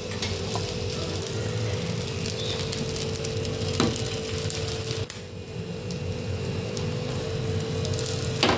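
Egg-dipped bread slices sizzling in melted butter on a dosa tawa, a steady frying hiss. A few light clicks come as slices are set down on the pan.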